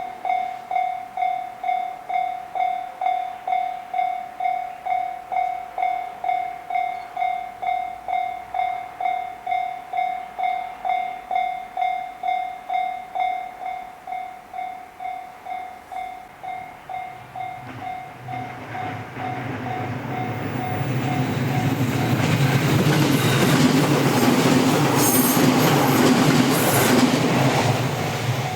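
Japanese level-crossing warning alarm ringing its 'kan-kan' tone about twice a second. From around the middle a train approaches and passes through the crossing, its rumble and wheel noise growing until it drowns out the alarm in the last third.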